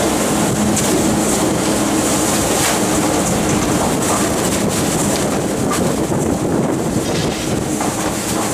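Rear-loading garbage truck with a rotary packer running: a steady mechanical rumble and clatter with a low engine hum under it, and scattered knocks as bags are swept into the hopper.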